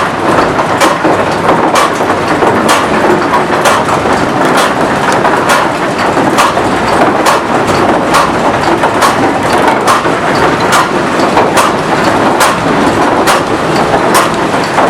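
Wind-driven corn-mill machinery running: a dense, loud wooden clatter with a sharp knock about once a second. The noise is mainly the drive of the bonker, a jog scry: a jogging sieve that is knocked to shake the meal through.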